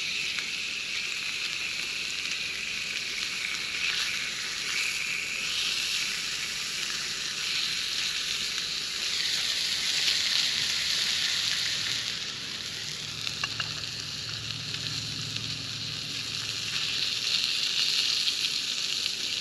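Fish fillets sizzling steadily as they fry in grease in a small skillet, with a few light clicks about two-thirds of the way through.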